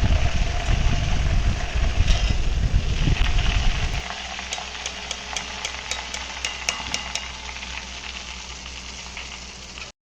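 Jackfruit chips sizzling in hot coconut oil over a loud low rumble. About four seconds in it drops to a quieter sizzle with a run of sharp light clicks, then cuts off just before the end.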